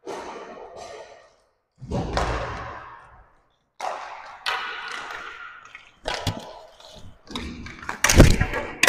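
Roller hockey play near the goal: a string of sharp clacks and thuds from sticks, puck and goalie pads, each one echoing in the hard-floored arena. The hits come more often toward the end, and the loudest lands about eight seconds in.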